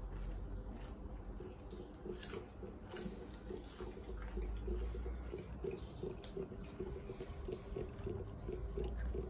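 Water trickling and dripping from a small bear-shaped toy water dispenser, in a steady, rapid run of drips.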